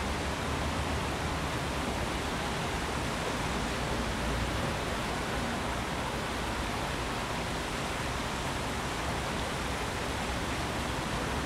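The Tsavkisi-Tskali stream running over rocks and a small cascade: a steady, even rush of water.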